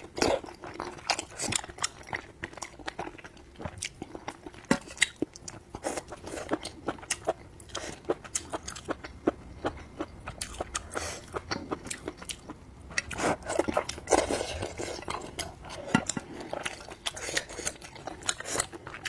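Close-miked chewing of soft, springy wide hot-pot noodles: irregular wet mouth clicks and smacks, with a denser stretch of mouth noise about two-thirds of the way through.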